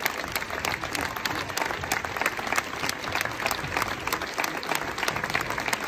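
Theatre audience applauding: dense, steady clapping from many hands, with sharper individual claps close by.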